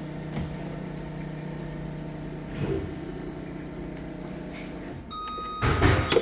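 Olympus disinfection machine running with a steady pump hum that stops about five seconds in. The machine then sounds a steady electronic beep, its signal that the step is done and it is waiting for the operator, and a loud clunk of handling follows.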